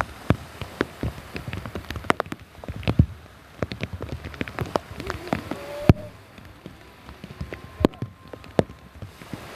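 Heavy rain, with drops landing close to the microphone as dense, irregular sharp taps and a few louder single hits.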